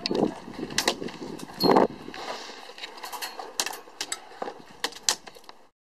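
Scattered sharp clicks and knocks of an airsoft skirmish: airsoft gunshots and BBs striking wooden cover. There is one louder thud about two seconds in, and the sound cuts out abruptly near the end.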